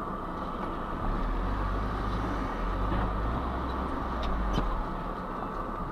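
Car engine and road noise heard from inside the car's cabin on a dashcam's microphone, steady, with a deeper rumble swelling from about a second in until near the end and a few faint ticks.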